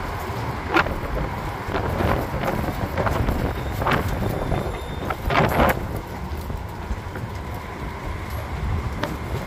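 A road tourist land train running, heard from aboard an open carriage: a steady rumble with wind on the microphone and a few short rattling knocks from the carriages, the loudest cluster a little past five seconds in.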